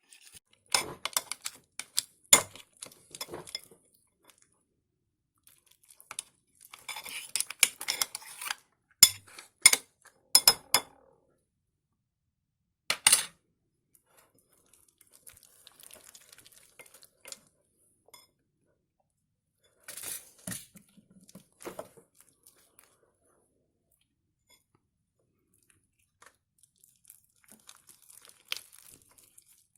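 Slime-making by hand: a utensil clinking and scraping in a bowl, with some crinkling, in scattered bursts separated by quiet gaps, one sharp knock about halfway through.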